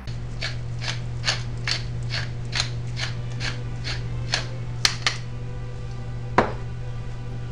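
Hand-twisted pepper grinder clicking in an even rhythm, about two to three clicks a second for some five seconds, then a single sharp knock. A steady low hum runs underneath.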